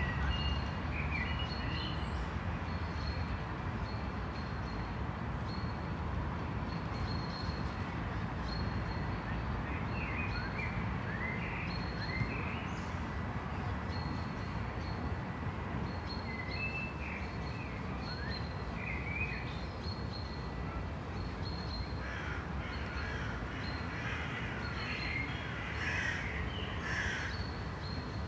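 City street ambience: a steady low hum of distant traffic, with birds calling now and then, most busily in the last few seconds.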